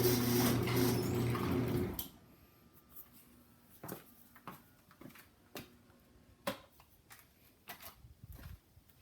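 Garage door opener motor running with a steady hum, cutting off abruptly about two seconds in as the door finishes closing. Scattered light clicks and knocks follow.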